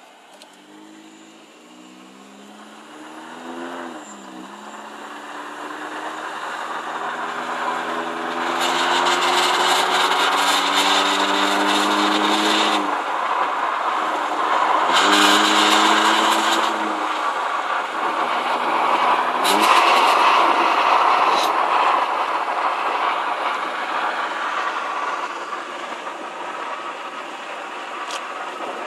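Perodua Myvi car's engine accelerating through the gears, its note climbing and then dropping back at each gear change. A harsh rattle comes in three stretches while it pulls under acceleration.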